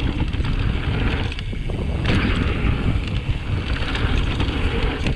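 Wind buffeting the microphone of a mountain bike's handlebar camera while riding downhill, over a steady noise of knobby tyres rolling on a dirt trail.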